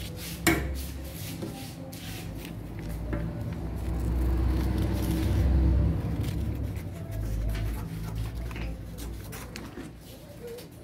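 Scissors snipping and cutting through a paper sewing pattern, with the paper rustling as it is handled, as a sharp click about half a second in and many short snips. Under it a low rumble swells, loudest around the middle.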